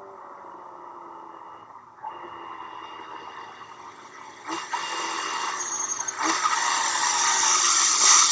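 Motorcycle sound effect ('Motorcycle Modern Pull Up') played back: a motorcycle engine approaching and getting steadily louder, with sudden jumps in loudness about two, four and a half and six seconds in.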